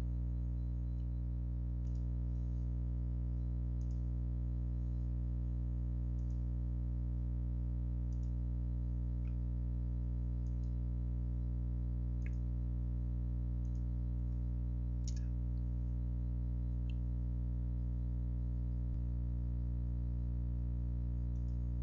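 Steady electrical hum on the recording, a low buzz with many even overtones that does not change. Faint computer-mouse clicks sound now and then, the sharpest about 12 and 15 seconds in.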